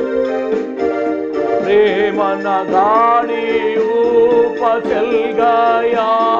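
Electronic keyboard playing held chords and a melody, and about two seconds in a man starts singing over it in long, bending notes.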